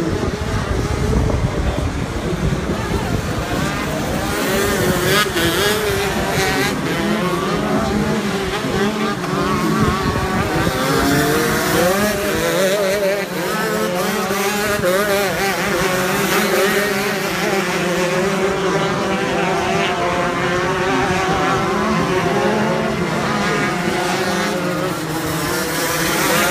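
Shifter kart engines, 125cc two-strokes, revving up and down through the gears at racing speed, with the pitches of more than one kart overlapping and rising and falling.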